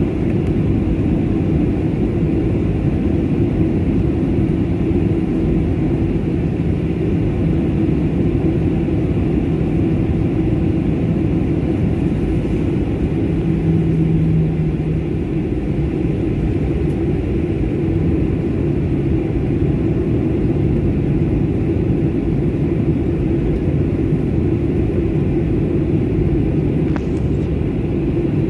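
Steady low rumble of a Boeing 737 MAX 9 taxiing, heard inside the cabin: its CFM LEAP-1B engines running at low taxi power. A hum rises for a moment about halfway through.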